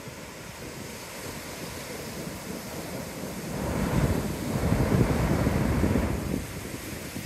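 Ocean surf: a wave breaks and washes in, swelling a little past halfway and fading back near the end, over steady wind noise on the microphone.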